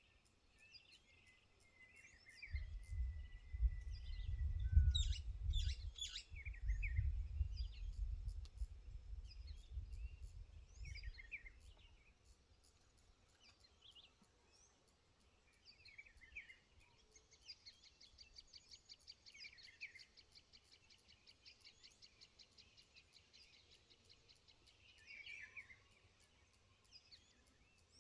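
Wild birds chirping and calling in short scattered phrases. A low rumble swells in about two seconds in and fades out near the middle, and later a rapid buzzing trill runs for several seconds.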